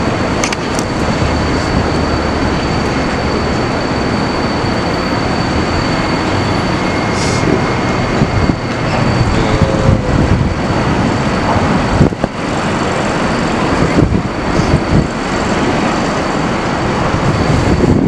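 Loud, steady city street noise: a dense rumble of traffic, with a faint high whine that stops about seven seconds in and a few short knocks.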